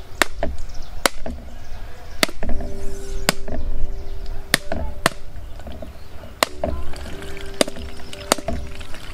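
Cleaver striking a whole husked coconut held in the hand, about seven sharp cracks a second or so apart, as the shell splits along a widening crack. Background music with sustained tones plays underneath.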